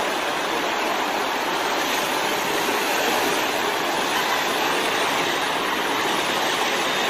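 Loud, steady rush of a flooded river's fast, muddy current.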